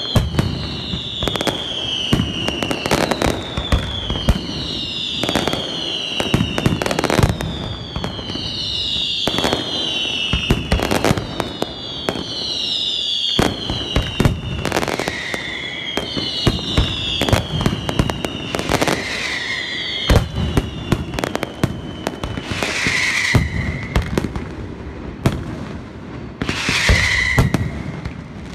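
Aerial fireworks display: many shells bursting in quick succession, with a high whistle falling in pitch repeating about every second and a half. Two loud, dense volleys of bursts come near the end.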